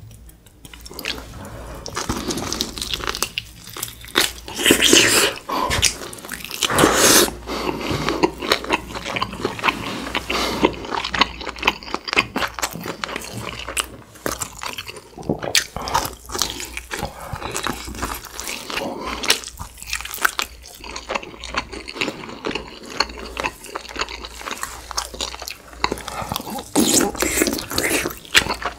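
Close-miked eating sounds of a person chewing beef short rib meat and rice: wet, irregular chewing and lip-smacking, with louder bites about five and seven seconds in.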